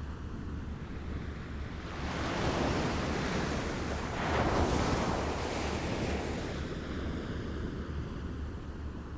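Waves lapping on a shore: one wave swells in about two seconds in, peaks near the middle and washes back out, over a steady low rumble.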